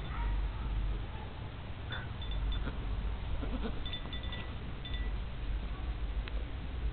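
Goat bleating a few times over a low wind rumble on the microphone, with wind chimes ringing now and then.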